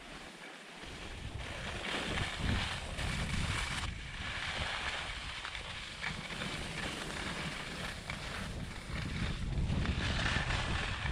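Wind buffeting the microphone of a camera carried by a moving skier, over the rushing hiss and scrape of skis turning on groomed snow, which swells and fades with each turn and grows louder near the end.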